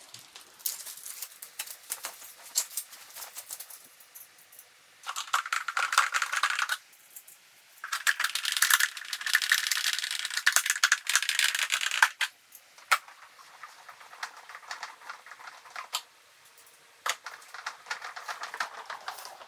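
Screwdriver driving in the screws that fasten a pressure washer's handle: dense, rapid clicking in two runs, a short one about five seconds in and a longer one from about eight to twelve seconds, with scattered single clicks between.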